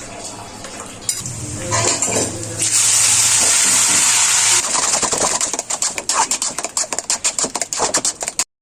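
A metal spatula clinking and scraping in a cooking pan while taro leaves are stirred. A loud hiss lasts about two seconds, then the stirring turns into rapid, irregular clattering strokes until the sound cuts off suddenly near the end.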